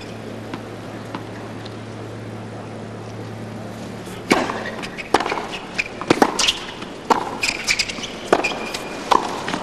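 Tennis ball struck by rackets on a hard court: a serve about four seconds in, then a rally of sharp racket hits and ball bounces at irregular intervals, after a few near-silent seconds.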